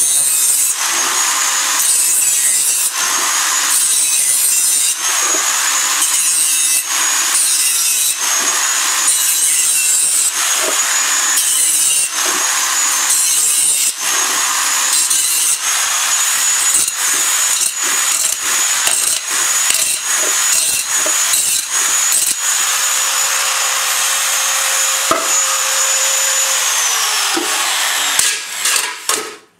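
Electric angle grinder cutting into a thin steel can. A steady high motor whine runs under harsh grating that swells and dips as the disc bites the metal. A few seconds before the end the motor winds down and stops.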